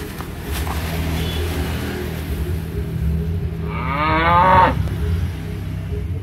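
A single bovine moo, about a second long, starting a little under four seconds in and rising in pitch, over a steady low hum.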